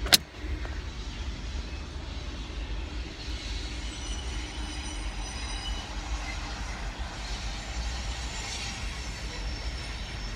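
A train going by: a steady low rumble with faint high-pitched wheel squeals that come and go, after a sharp knock right at the start.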